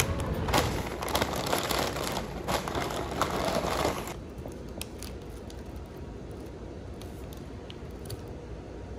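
Paper fast-food bag and wrappers rustling and crinkling as food is taken out, for about four seconds. Then quieter, with a few light clicks.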